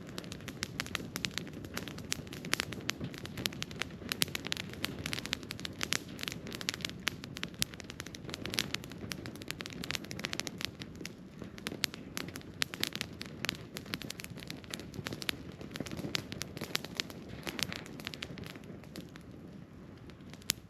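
Wood campfire crackling, with frequent sharp pops and snaps over a low, steady rushing of the burning fire. The crackling thins out near the end.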